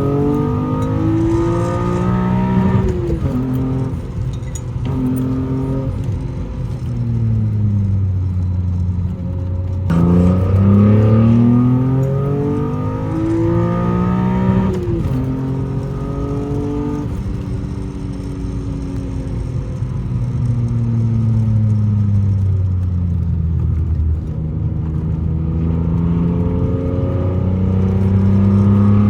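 BMW E36 M3's S50B30 inline-six with a stainless six-into-one exhaust, being driven hard: the revs climb and fall again and again, with abrupt changes about 3, 10 and 15 seconds in.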